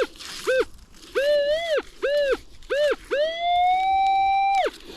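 Minelab Manticore metal detector sounding off over a buried target as the coil is swept across it to pinpoint it: five short tones that each rise and fall in pitch, then one longer steady tone held about a second and a half.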